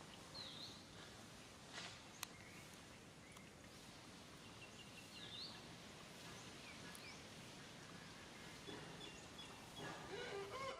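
Faint outdoor background with a few small high chirps and a single click. Near the end a baby macaque starts crying in thin, wavering whines.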